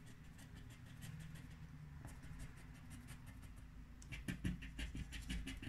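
Paper scratch card being scraped with a plastic scraper, its coating coming off in a rapid run of short scratching strokes. The strokes are faint at first and grow louder from about four seconds in.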